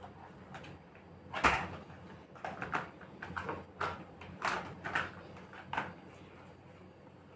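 Hard plastic toy cars knocking and clattering against each other as a child handles them: one sharp knock about one and a half seconds in, then a string of lighter knocks over the next few seconds.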